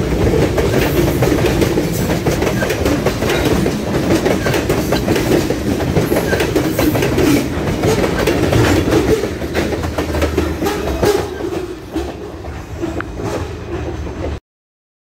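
Freight cars of a passing Reading & Northern freight train rolling by close at speed: a steady rumble with quick clicking and clanking of the wheels on the rails. It gets quieter about twelve seconds in, then cuts off abruptly.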